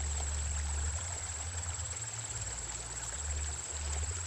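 Small river flowing steadily, with an uneven low rumble underneath and a steady high-pitched tone.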